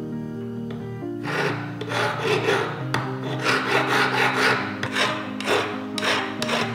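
Flat hand file rasping along the edge of an engraved silver plate braced on a wooden bench pin, in quick back-and-forth strokes that start about a second in and stop just before the end. Soft background music plays under it.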